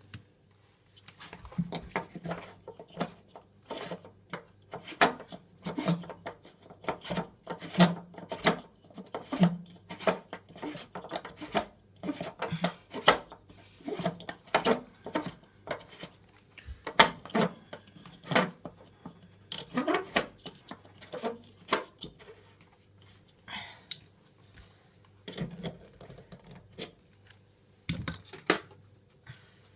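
Irregular clicks, knocks and clatter of hard parts being handled and worked on while a vintage Hoover Aquamaster washing machine is cleaned out, with short pauses, over a faint steady low hum.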